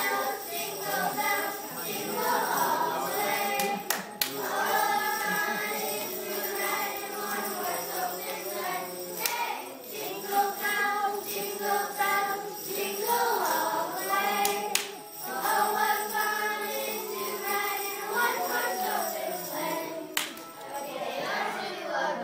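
A group of young girls singing a Christmas carol together from lyric sheets.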